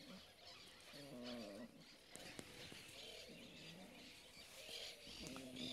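German shepherd puppies making three faint, short, wavering vocal sounds: one about a second in, one around three seconds in, and one at the end.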